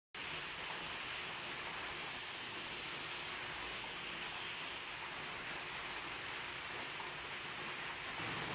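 Steady rain falling outdoors, an even hiss with no distinct drops.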